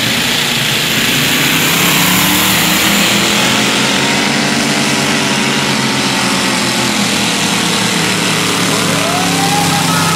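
Pulling tractor's engine running hard, loud and steady, its pitch holding with only slight shifts.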